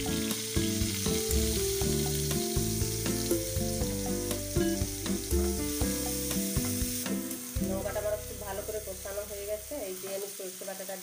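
A wet turmeric-and-chilli paste sizzling in hot oil in a non-stick frying pan while a wooden spatula stirs and scrapes it around, with short clicks of the spatula on the pan. Background music plays underneath, and the sizzle gets somewhat quieter in the second half.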